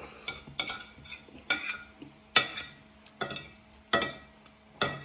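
Metal spoon and fork scraping and clinking against a ceramic plate, about a dozen short strokes in an uneven rhythm, as spaghetti in sauce is gathered up.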